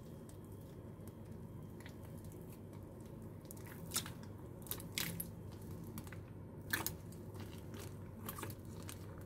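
Black borax-free slime made with melted liquid soap being stretched, folded and squeezed by hand: soft squishing, with a few sharp clicks and pops from about four seconds in, the loudest near the start of that run and again about seven seconds in.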